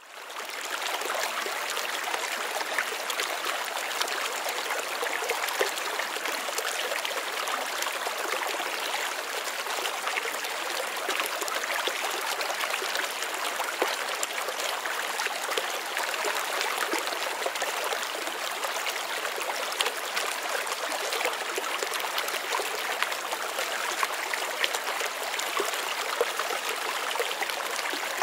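Small creek running steadily, a constant rush of trickling water.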